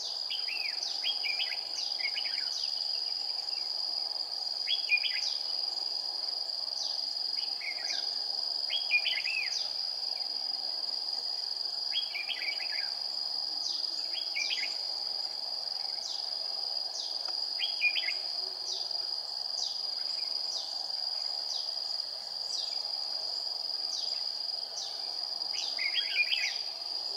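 Red-whiskered bulbuls singing: short warbling phrases and quick falling chirps every few seconds, over a steady high-pitched insect drone.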